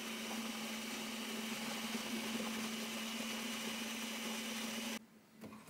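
Ninja Creami ice-cream maker running: a steady motor hum with one held tone that cuts off abruptly near the end.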